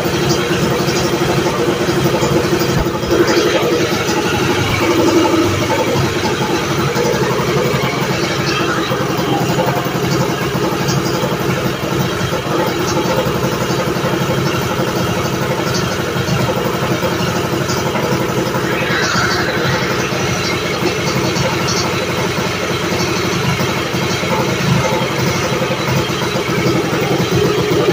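Custom billet Briggs & Stratton Animal single-cylinder kart racing engine, newly built and on its first start-up, running steadily on a bench stand.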